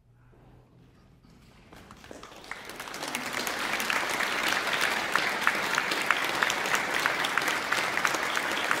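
Audience applauding. After a near-silent pause the clapping starts about two seconds in and swells to full applause, with one nearby pair of hands clapping steadily above the rest.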